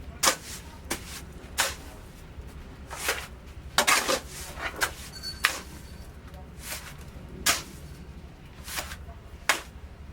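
Building work: sharp knocks and clanks at irregular intervals, about a dozen over ten seconds with a quick cluster around four seconds, over a low steady hum. A brief high ringing tone sounds about five seconds in.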